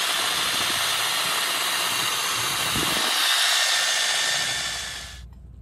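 Cordless drill spinning a paint-mixer attachment in a can of thick ablative bottom paint: a steady motor whine that fades and cuts off near the end.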